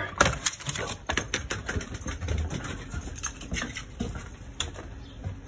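A quick run of clicks and taps, thickest in the first two seconds and then more scattered: a small dog and its owner heading out through a storm door and across a wooden deck onto icy ground.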